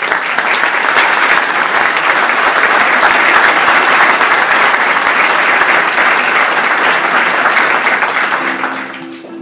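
Audience applauding, starting at once, holding steady, then dying away near the end.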